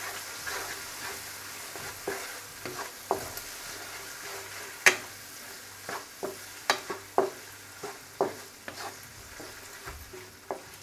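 Wooden spatula stirring diced chicken and onion frying in a nonstick wok: a steady sizzle, with irregular scrapes and knocks of the spatula against the pan.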